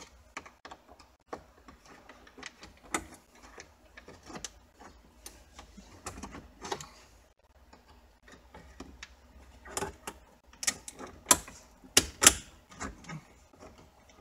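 Irregular clicks, taps and plastic rattles as a car's dash control unit is pried loose with two hard tools pushed into its release holes, with a cluster of sharper, louder clicks near the end.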